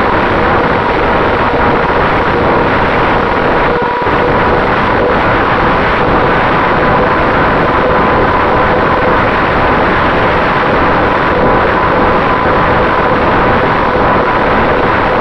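Finwing Traveler RC plane in cruising flight, heard from its onboard camera: the steady whine of its brushless electric motor and propeller over a loud, even rush of wind.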